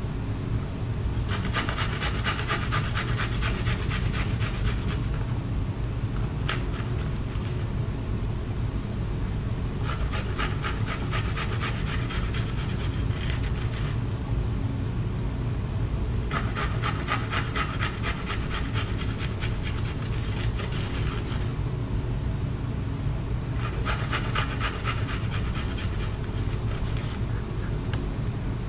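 Garlic cloves being grated on a round perforated metal grater plate: quick rasping strokes in runs of a few seconds, with short pauses between runs. A steady low hum sits underneath.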